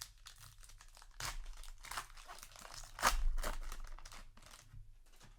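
A trading-card booster pack's wrapper crinkling and being torn open by hand, in a run of crackles with the loudest rip about three seconds in.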